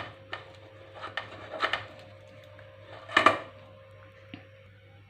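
Kitchen dishes and utensils clinking and knocking several times, the loudest knock about three seconds in, over a faint steady hum.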